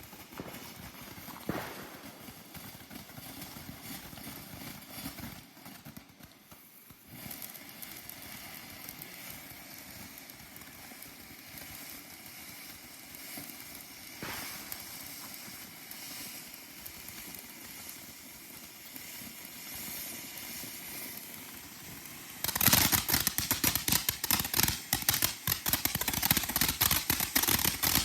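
A consumer fireworks cake goes off about 22 seconds in, with a loud, dense run of rapid crackling and popping that keeps going; before it there are only faint, low background sounds.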